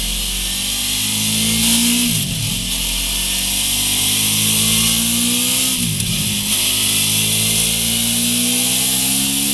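Honda VFR800F's V4 engine breathing through a Mivv Speed Edge exhaust, pulling up through the revs under load. The pitch climbs steadily, drops sharply about two seconds in and again about six seconds in, like upshifts, then climbs again.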